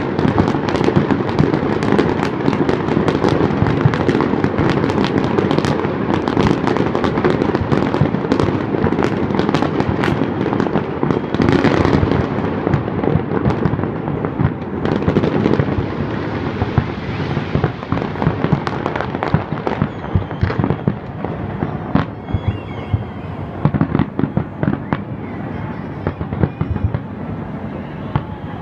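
Fireworks display: a dense, continuous barrage of bangs and crackling that thins out over the last third to scattered separate bangs.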